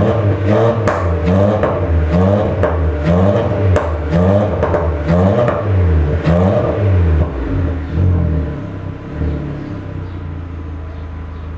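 Peugeot 206's 1.6 16v four-cylinder petrol engine (TU5JP4) through a sports rear muffler, blipped over and over in quick succession, with exhaust pops as the revs drop. About seven seconds in the blipping stops and the engine settles to a steady idle.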